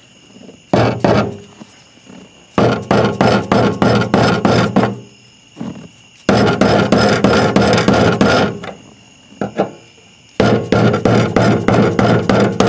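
Rapid metal strikes, about five a second, in runs of a few seconds with short pauses: a flat steel bar being hammered against the fuel pump's locking ring to turn it loose from the tank. Each run rings a little.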